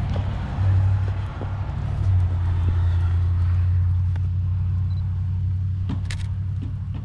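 Car engine running with a steady low hum. A camera shutter clicks near the end.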